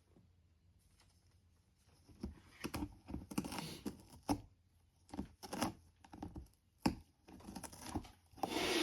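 A cat biting and gnawing at a cardboard box, an irregular run of crunching, tearing bites starting about two seconds in.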